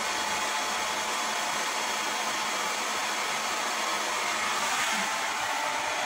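Hand-held hair dryer fitted with a diffuser, running steadily: a constant rush of blown air with a faint steady hum.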